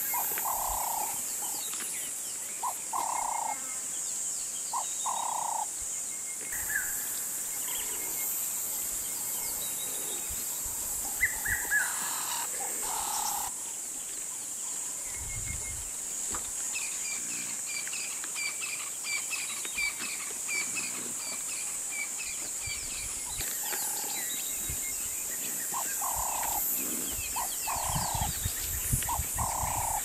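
Bushveld outdoor sound: a steady high-pitched drone of insects, with short repeated hooting calls in groups of two or three near the start and again near the end, and a quick run of high bird chirps in the middle.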